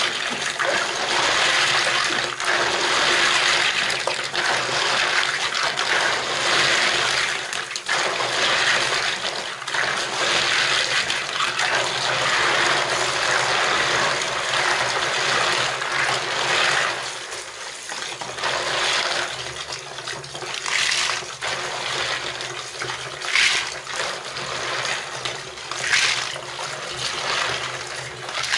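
Tap water pouring into a plastic basin of snails while hands swish and rub the snails about in the water, splashing. The water noise drops somewhat about halfway through, with a few sharp splashes near the end.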